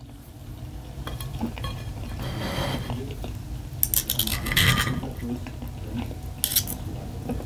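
Cutlery scraping and clinking on a plate, with a cluster of sharp clinks around the middle and another clink near the end.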